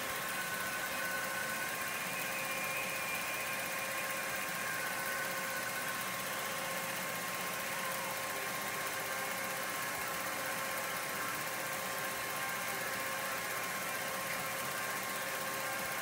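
Film projector running: a steady mechanical whir with a few faint steady tones.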